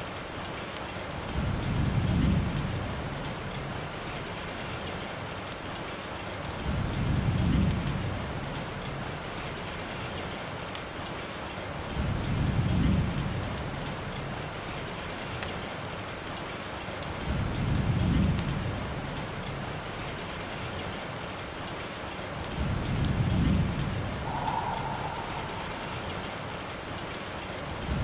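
Steady rain, with a low rumble that swells and fades five times, about every five and a half seconds.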